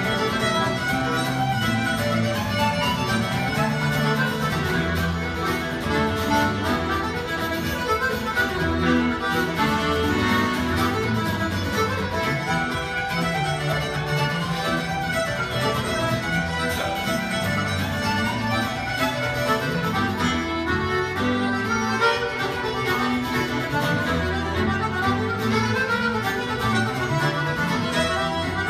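Fiddle, accordion and acoustic guitar playing an Irish traditional tune together, live and steady throughout, the fiddle carrying the melody.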